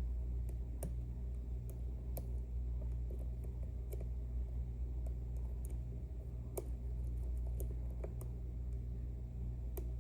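Irregular small clicks and ticks of lock picking tools working inside an Ezcurra C23 slider lock, over a steady low hum.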